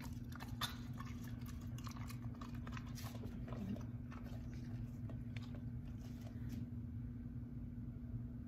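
Golden retriever chewing a piece of cooked chicken breast: a series of short wet smacks and jaw clicks, thinning out after about four seconds. A steady low hum runs underneath.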